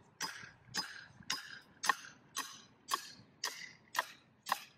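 Claw hammer driving a large nail into a block of pine, about nine steady blows roughly two a second, each a sharp knock with a brief metallic ring.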